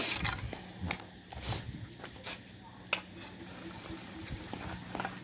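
Footsteps and dogs' paws on a concrete yard: a few scattered light taps and scuffs over a faint steady hum.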